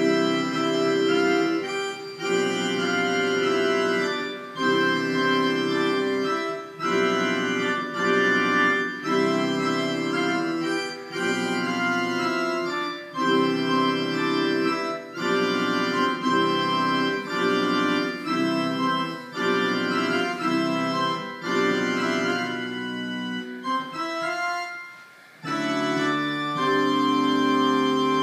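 Digital keyboard played on an organ-like voice: sustained chords that hold at an even level and cut off sharply, changing about every second. A brief pause comes shortly before the end, then held chords resume.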